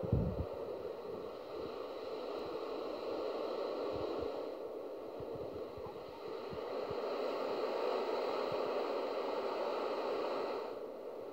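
Outdoor seaside ambience: a steady rush of surf and wind, with low thumps of wind buffeting the microphone, the strongest right at the start.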